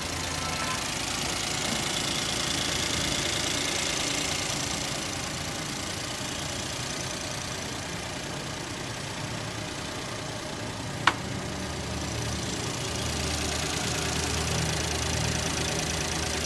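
Suzuki Alto's small three-cylinder petrol engine idling steadily, with one sharp click about eleven seconds in.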